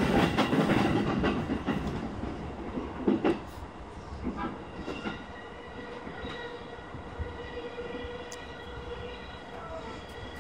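JR East E233-series electric train slowing into a station, heard from the driver's cab. At first a loud rumble and clatter of wheels over rail joints and points, with a sharp knock about three seconds in. It then grows quieter as the train slows, with a steady whine of several tones.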